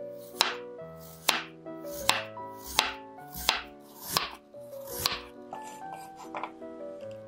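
Chef's knife slicing a raw potato on a wooden cutting board: seven sharp knocks of the blade on the board, one about every 0.8 s, then softer, quicker taps near the end. Soft background music plays underneath.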